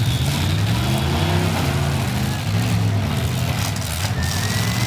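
Several demolition derby cars' engines running together in the arena, loud and rough, revving up and down unevenly.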